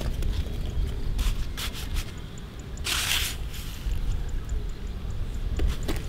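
Pink plastic toy shovel scraping up loose dry soil and tipping it into a yellow plastic toy dump truck's bed: a few short gritty scrapes, the loudest about halfway through.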